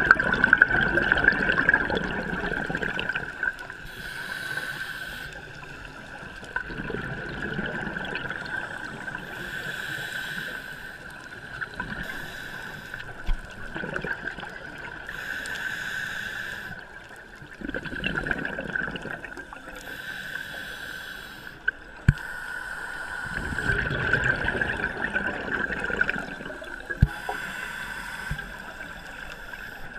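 Scuba diver breathing through a regulator underwater: a short hissing inhale about every five to six seconds, alternating with a longer gurgling rush of exhaled bubbles. A steady high tone sits underneath.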